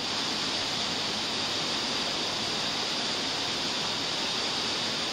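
Steady, even hiss with no other distinct sound.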